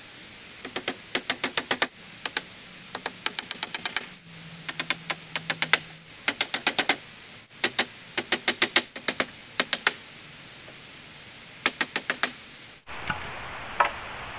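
Hammer driving nails: quick runs of sharp strikes, about eight a second, in several bursts with short pauses between. Near the end a steady hiss comes in, with a couple of knocks.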